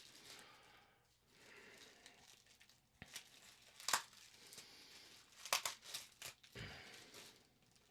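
Faint crinkling and rustling of packing material as hands dig through a mail-order box, with a few sharp clicks in the middle and a low thump about two-thirds of the way through.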